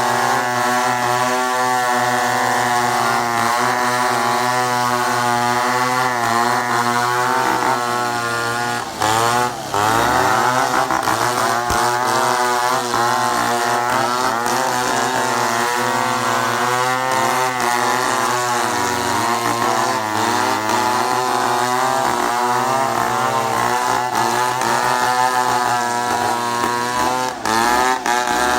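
Chainsaw engine running continuously, its pitch wavering up and down as the chain works, with brief drops in level about nine seconds in and again near the end.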